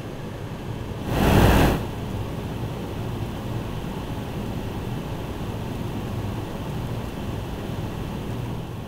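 Steady low outdoor rumble and hum, with a brief loud rush of noise about a second in.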